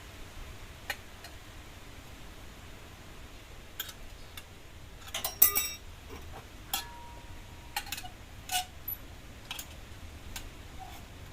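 Scattered metallic clicks and clinks of tools and small metal parts being handled, about eight of them, with the loudest cluster about five seconds in; one clink near the middle rings on briefly.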